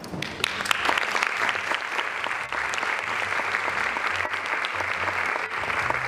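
Audience applauding: dense, steady clapping that sets in just after the start.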